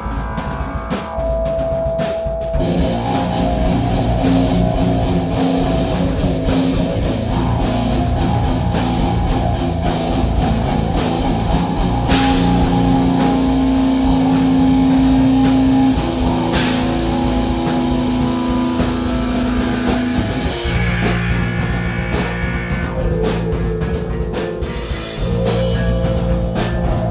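Live band jamming an improvised rock piece built on two notes, E and F: guitar with long held notes over a drum kit, with two cymbal crashes near the middle.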